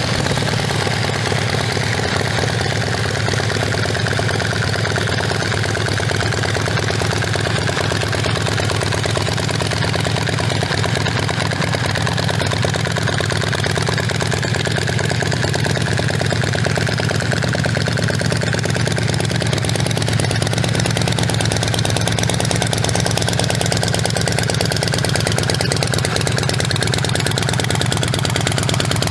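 Air-cooled V-twin engine of a 2004 Redneck Rocket Low Life custom chopper idling steadily through its exhaust.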